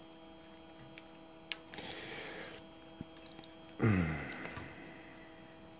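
Small light clicks and scratches of broken regulator/rectifier pieces and a screwdriver being handled, over a steady electrical hum. About four seconds in, a short wordless murmur of a man's voice is the loudest sound.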